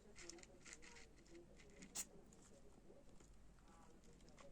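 A guinea pig's single short, sharp sneeze about two seconds in, amid faint brief rustles and ticks.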